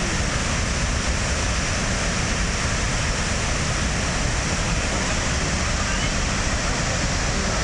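A waterfall's falling water, a steady, unbroken rushing noise.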